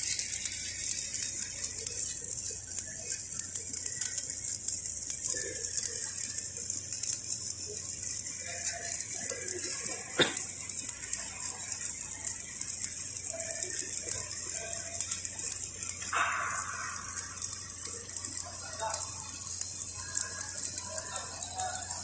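Stick (shielded metal arc) welding arc burning on a steel pipe joint, a steady crackling hiss as the electrode melts in, with one sharp click near the middle.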